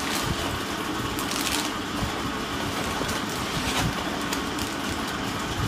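A paper shopping bag and a plastic packet rustling as they are handled, over a steady low machine-like hum.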